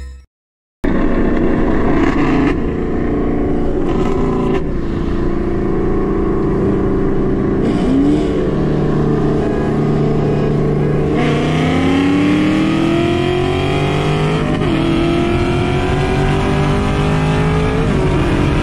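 Camaro SS's 6.2-litre V8 at full throttle, heard from inside the cabin, starting after a brief silence. It climbs in pitch through each gear and drops back at each of several upshifts during a roll race against another car.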